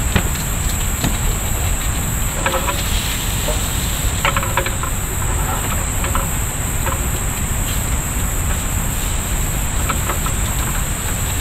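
Insects singing in a steady high-pitched chorus over a constant background hiss, with a few brief clicks and chirps between about two and seven seconds in.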